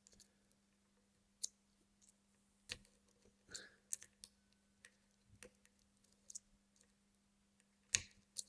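Faint, irregular metallic clicks of a lock pick working the pin stack of a circular-keyway lock, the pins setting one by one under tension. About a dozen scattered clicks, the loudest near the end.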